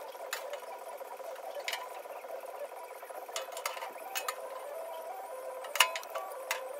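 Scattered sharp metallic taps and clinks, about seven of them, the loudest near the end, from the sheet-metal gas tank being handled. Under them runs a steady faint hum.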